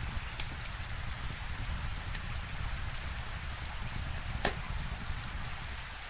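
Steady rain falling, mixed with a crackling wood fire: scattered sharp pops and clicks over the rain's even hiss, one louder pop about four and a half seconds in.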